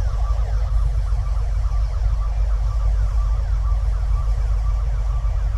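Deep, steady earthquake rumble, with an alarm of many short, rapidly repeating falling chirps sounding above it.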